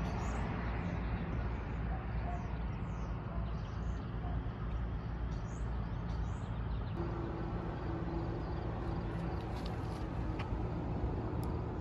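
Steady road-traffic noise with short high bird chirps now and then. A steady hum joins about halfway through.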